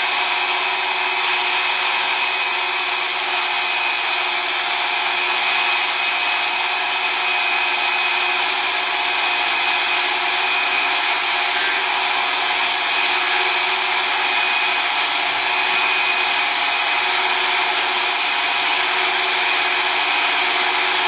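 Electric motor running steadily at full speed, a constant rushing noise with a high whine.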